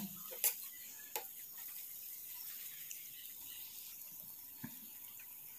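A few faint taps and scrapes of a steel spoon against an iron kadai as a thick masala is stirred, over a low steady hiss.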